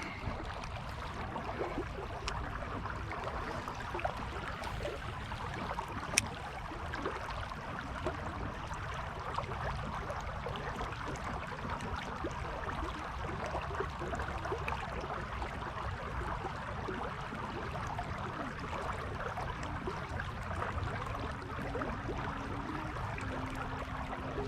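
Creek water running steadily, a continuous rushing babble, with one sharp click about six seconds in.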